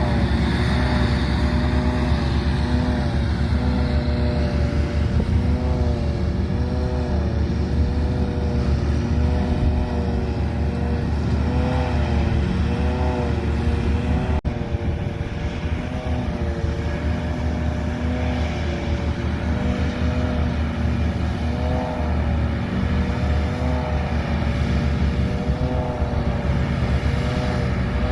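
Farm machinery engine running steadily under load, its pitch rising and dipping slightly every couple of seconds, with a short break about halfway through.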